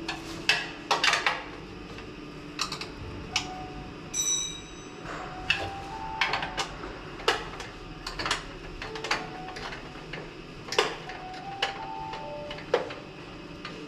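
Irregular sharp metal clicks and knocks from hand tools working on a home snowblower during the final tightening of its bolts, with a quick cluster about a second in. Faint background music with short held notes runs under them.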